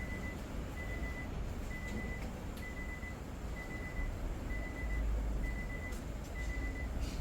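An electronic beeper sounds a short, even beep at a single pitch a little more often than once a second, over a steady low rumble from the running car, during refrigerant charging of the car's air conditioning.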